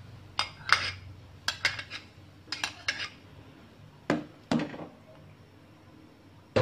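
Metal ladle clinking against the aluminium pot while stirring soup: about ten sharp clinks in irregular clusters, the last two about four seconds in.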